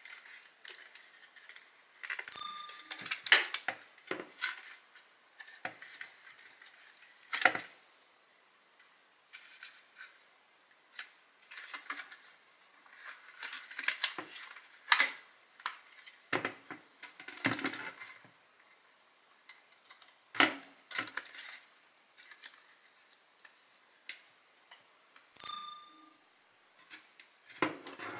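Hard plastic parts of a Dyson cordless stick vacuum being handled and worked on: scattered clicks, taps and knocks, with two steady sounds about a second long, one about two and a half seconds in and one near the end.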